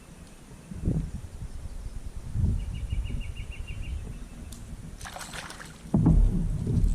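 Water moving around a kayak, with low thumps and rumble from the boat being handled. A short run of quick, even clicks comes in about two and a half seconds in.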